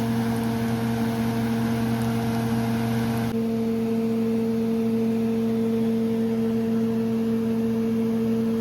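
Steady electric hum of a kitchen appliance motor, with a fan-like hiss that drops away about three seconds in.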